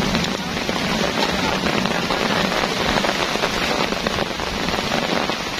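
Heavy rain pouring steadily, a dense, even hiss of countless drops.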